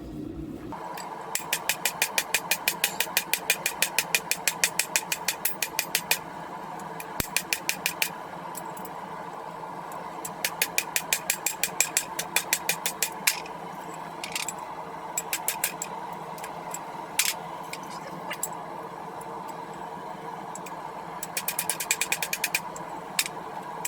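Hammer blows on a hot railroad spike on the anvil, drawing out the blade: several quick runs of about five strikes a second with pauses between them and a single blow near the middle, over a steady mechanical hum.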